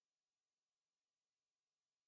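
Near silence: no audible sound, only a faint, even background hiss.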